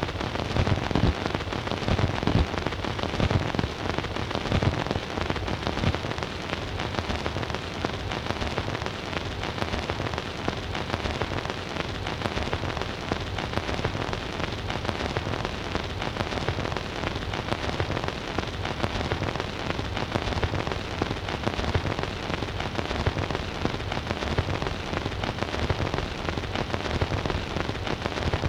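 Surface noise of a 78 rpm shellac record's lead-in groove playing on a Bush record player: a steady hiss thick with irregular crackles and small pops, and no music.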